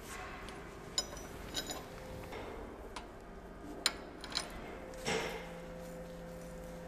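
A few light metallic clicks and clinks as steel nuts are threaded by hand onto the studs of a bearing flange on a wheel loader's articulation joint. A faint steady hum comes in about five seconds in.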